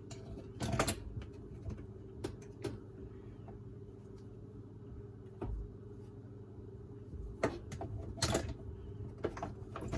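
Scattered clicks and knocks of plastic dishwasher parts being handled and fitted back into the bottom of the dishwasher tub, over a steady low hum. The loudest knocks come about a second in and twice near the end.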